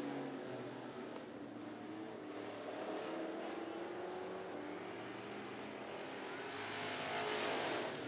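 Engines of a pack of vintage-bodied dirt track race cars running at speed around the oval, their pitches rising and falling as they go through the turns. The sound swells about seven seconds in as the cars come past close by.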